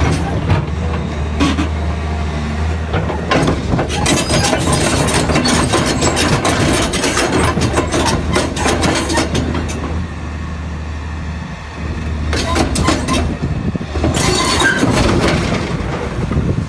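Heavy diesel machinery running steadily, with a low engine hum under repeated metallic clanking and rattling that comes and goes.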